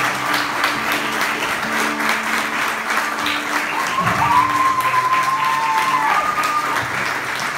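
Audience clapping over an acoustic guitar, with a long high-pitched cheer held from about halfway through.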